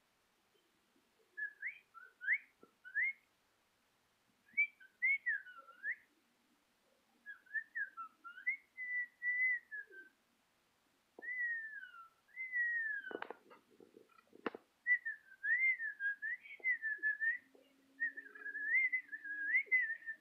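A person whistling: a single clear tone sliding up and down in short, wavering phrases with pauses between. There are two sharp clicks about two-thirds of the way in.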